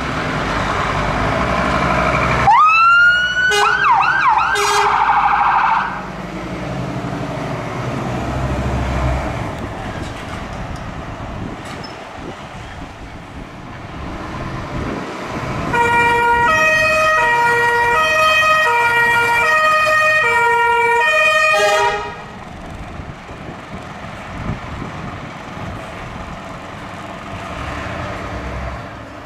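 Scania fire engines' electronic sirens being tested over a running engine: about two and a half seconds in a siren winds up in a rising glide and gives a few quick up-and-down sweeps before cutting off a few seconds later. Later a two-tone siren alternates between two notes for about six seconds, then stops.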